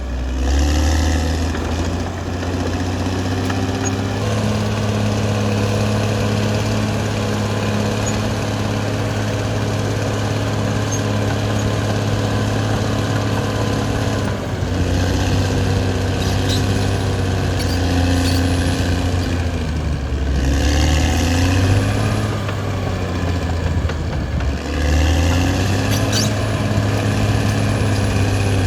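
Caterpillar D6R XL bulldozer's diesel engine running steadily under work, its pitch dropping and rising again a few times as the revs change with the load, about halfway through and again near the end.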